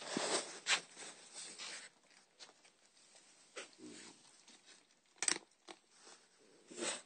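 Close rustling and rubbing against a phone's microphone as it is handled beside a young cat, loudest in the first two seconds, with a few sharp clicks scattered through.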